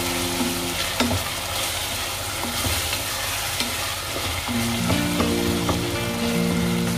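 Chopped tomatoes and onions sizzling in hot oil in a stainless steel pressure cooker while a wooden spoon stirs them, with a few sharp knocks and scrapes of the spoon against the pot, one about a second in and several more near the end.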